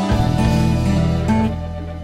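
Instrumental background music, easing off slightly near the end.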